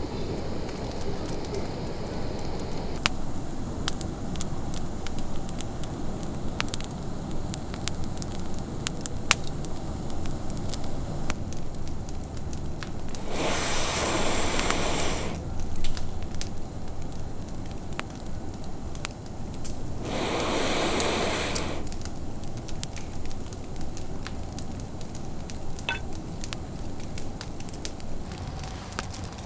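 Wood campfire burning, with many scattered sharp crackles and pops over a low steady rumble. Twice, about a third of the way through and again past the middle, a hissing rush lasting about two seconds rises over it.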